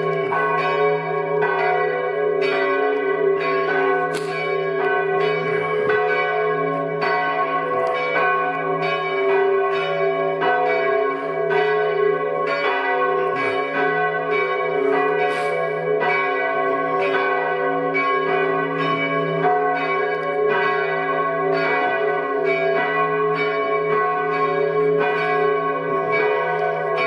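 Several church bells ringing together in a continuous peal from the tower, the strokes following one another without a break and each leaving the others still ringing.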